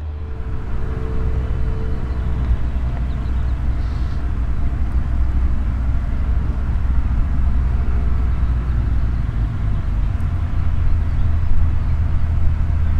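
Steady low rumble of wind buffeting the microphone, mixed with distant engine noise. A faint droning tone fades out in the first two to three seconds.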